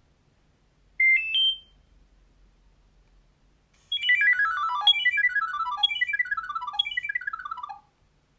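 Nokia 6230i built-in alert tones: a quick rising three-note chirp about a second in, then from about four seconds a tone of four fast descending runs of notes, each about a second long.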